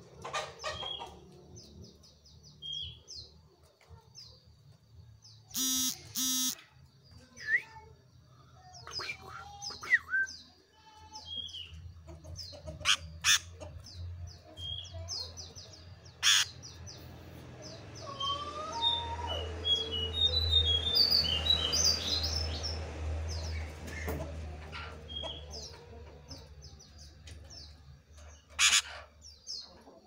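Sooty-headed bulbul (kutilang) chirping and calling from its cage in short high notes throughout. A few sharp, loud knocks break in, and a low rumble swells in the middle.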